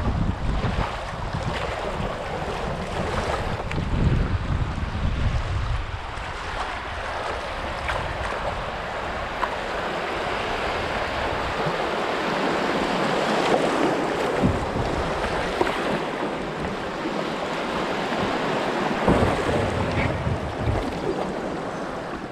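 River water rushing and splashing through a shallow riffle, heard close to the water from a canoe running through it, with wind buffeting the microphone in gusts.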